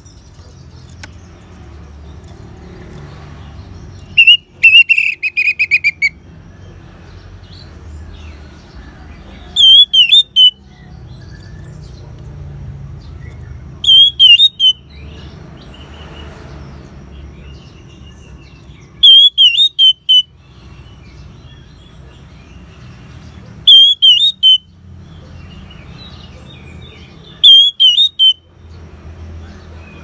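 Orange-headed thrush singing six short, loud, wavering whistled phrases, one about every four to five seconds; the first is a longer phrase that falls in pitch. A low rumble of background noise fills the gaps between phrases.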